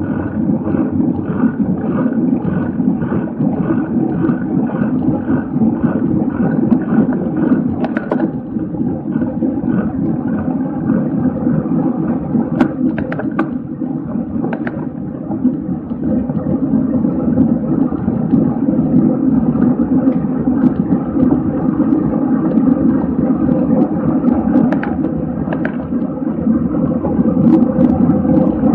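Wind buffeting the microphone of a racing cyclist's camera, a loud steady rumble with a regular pulsing about twice a second over the first several seconds and a few sharp clicks partway through.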